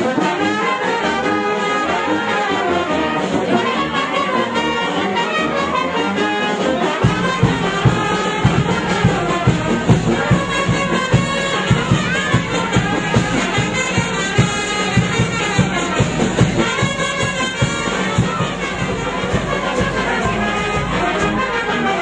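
Brass band playing dance music, with trumpets and trombones carrying the melody. About a third of the way in a drum beat joins at roughly two beats a second.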